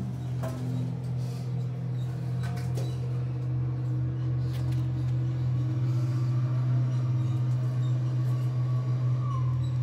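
A steady, low mechanical drone, like a motor or engine running continuously, with a few light clicks and knocks in the first few seconds.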